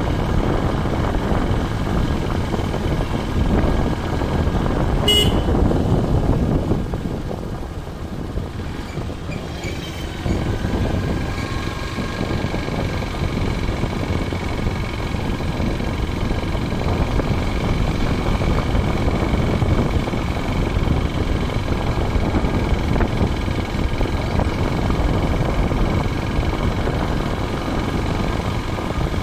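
Motorcycle running at steady riding speed, its engine hum under a heavy rush of wind on the microphone. A brief high beep comes about five seconds in.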